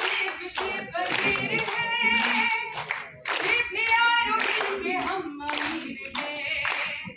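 A voice singing through the hall's microphone and speakers, with an audience clapping along.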